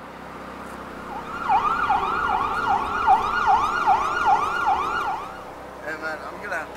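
Emergency vehicle siren in a fast yelp, with quick rising-and-falling sweeps about two or three a second. It starts about a second in and stops around five seconds in.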